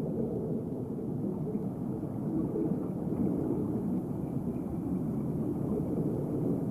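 Steady low rumbling underwater ambience, with no distinct events.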